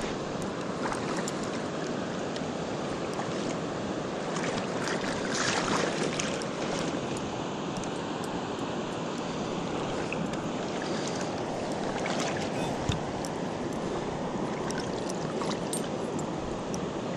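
Steady rush of flowing river water, with scattered short splashes and clicks as a hooked fish is played at the surface.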